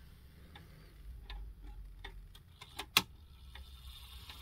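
Hermle mechanical regulator wall clock ticking, then a quicker run of clicks and one sharp, louder click about three seconds in while the minute hand is turned up to the hour.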